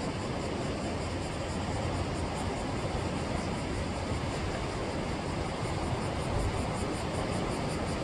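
Steady rushing of sea surf at the shore, with a low rumble underneath.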